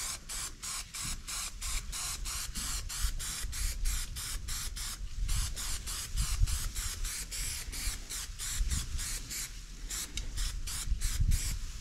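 Aerosol spray can hissing in short, rapid bursts, about three a second, as a light coat is dusted onto a repaired body panel. The bursts stop just before the end.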